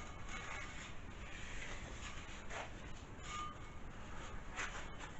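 Faint rubbing and a few light handling strokes as an abrasive belt is fitted and adjusted on a homemade 2x72 belt sander by hand; the machine is not running.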